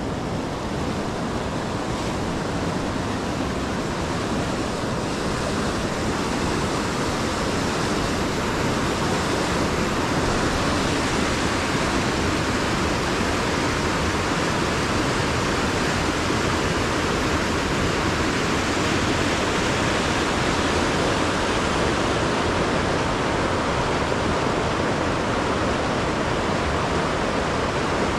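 Mountain river rushing over rocks in a steady roar of white water, growing a little louder over the first several seconds.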